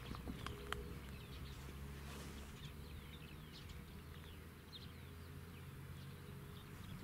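Songbirds chirping, many short falling notes, over a faint steady low hum, with one sharp click under a second in.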